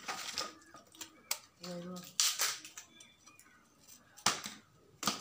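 A person's voice briefly, about two seconds in, and a few sharp clicks, the loudest about four seconds in.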